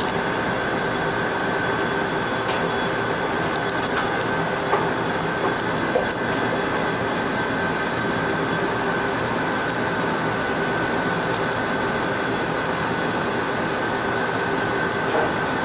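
Steady drone of kitchen ventilation or air conditioning, with a constant high tone running through it. Now and then there are faint snaps as artichoke leaves are pulled off by hand.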